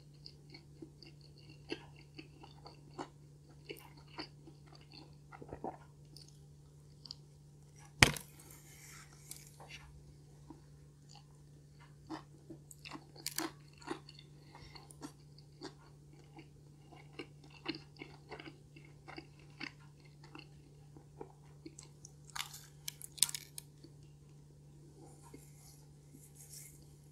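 Close-miked chewing of breadcrumb-speckled stuffed-crust pizza: scattered wet mouth clicks and small crunches, with one sharp, loud crunch about eight seconds in and busier clusters later on. A faint steady low hum lies underneath.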